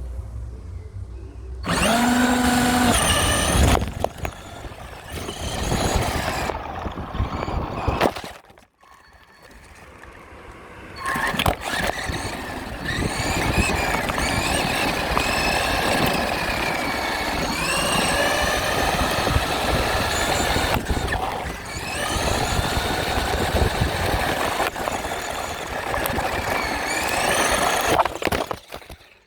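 RC truck driving: its motor whine rises and falls again and again as the throttle is worked, over a rough rumble of tyres and drivetrain. It drops off briefly about a third of the way through, then picks back up.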